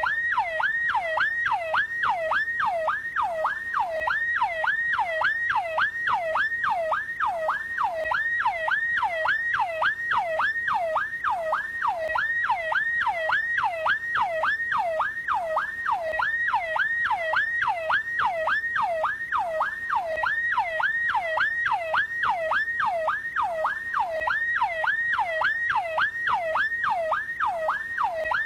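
1980s-type police vehicle siren sounding a fast yelp: a single tone that repeatedly drops from high to low and snaps back up, a little over two times a second, steady and unbroken.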